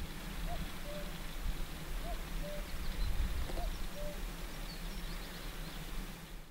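Common cuckoo calling its falling two-note "cuck-oo" three times, about every one and a half seconds, over a steady low rumble and hiss. Small birds chirp faintly in the background.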